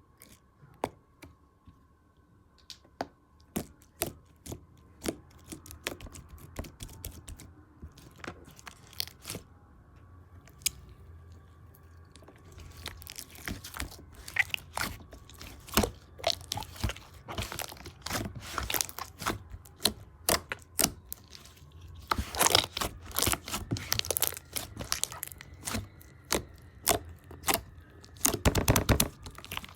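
Cotton candy slime being handled: sparse sticky clicks and pops at first, building from about halfway into dense crackling and tearing, with two louder stretches of crackling near the end.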